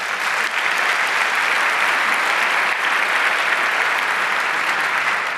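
A large audience applauding: steady clapping that tapers off near the end.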